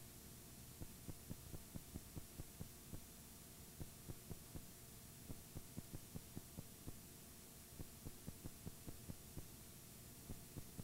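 Faint electrical hum with soft, irregular low ticks, about four a second in runs with short gaps: the noise floor of a blank stretch on a multi-generation videotape copy.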